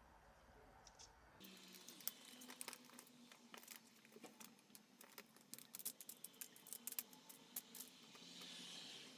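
Faint handling noise: scattered light clicks and crinkling of small parts or material being worked by hand, with a short soft hiss near the end.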